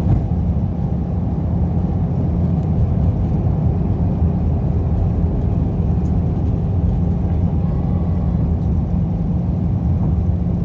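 Airbus A319 cabin noise on descent: a steady low rumble of airflow and the hum of its CFM56 engines, with a few faint steady tones, heard from a window seat beside the wing.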